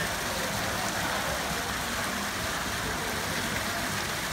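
Small rock waterfall pouring into a pond: a steady rush of falling water.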